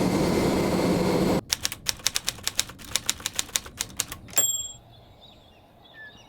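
A second and a half of steady hiss, then rapid sharp clicking at about seven clicks a second, ending in a single bell-like ding.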